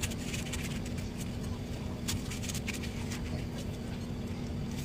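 Knife cutting into a watermelon's rind, with irregular short crisp clicks and scrapes over a steady low hum and rumble.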